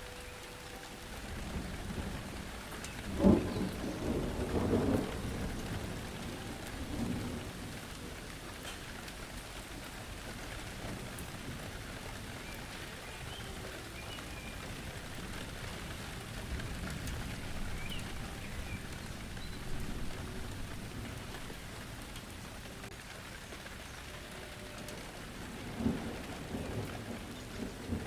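Steady rain falling on the ground with rolling thunder: a sudden loud clap about three seconds in that rumbles on for a couple of seconds, and another rumble near the end.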